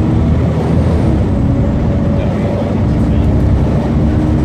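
Volvo B7TL double-decker bus under way, heard from inside the saloon: its Volvo D7C engine and cooling fans make a steady low drone with a held hum, whose pitch shifts slightly about a second in.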